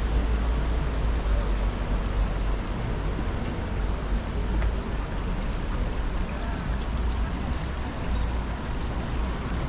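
Steady outdoor city ambience: a continuous rush of noise over a deep low rumble, with no single sound standing out.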